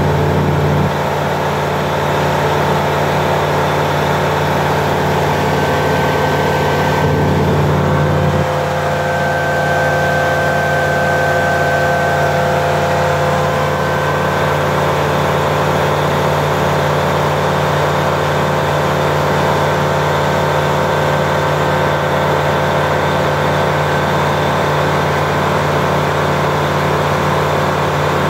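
Flight Design CTLS light aircraft in cruise, heard from inside the cabin: the steady drone of its Rotax 912 four-cylinder engine and propeller, with a slight change in tone about eight seconds in.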